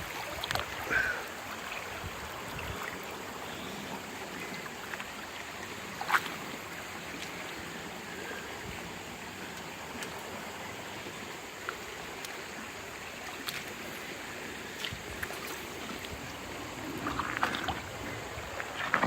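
Steady rush of creek water flowing over and around the stones of a fish dam, running high after heavy rain, with a few short clicks.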